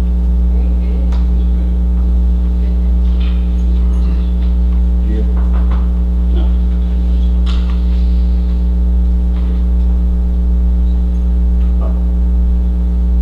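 Loud, steady electrical mains hum with a ladder of higher overtones, under faint, indistinct voices.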